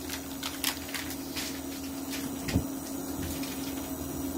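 Steady low electrical hum with a few light clicks in the first second or so and one soft knock about two and a half seconds in.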